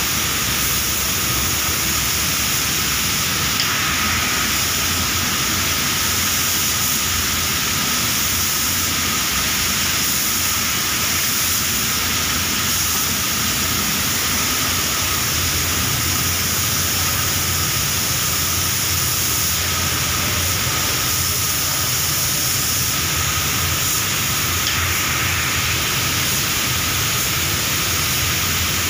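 Steady rushing hiss of a paint spray booth's air extraction, with a compressed-air spray gun spraying clear lacquer at times.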